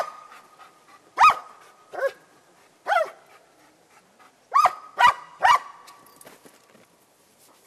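German shepherd barking at a decoy in the blind, guarding him in a bark-and-hold: seven sharp, loud barks in an uneven rhythm, stopping about five and a half seconds in.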